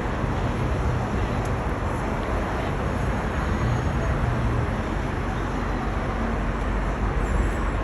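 Steady noise of road traffic on a busy city street, cars passing continuously.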